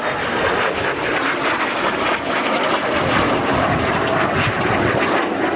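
An aircraft flying overhead, with steady engine noise.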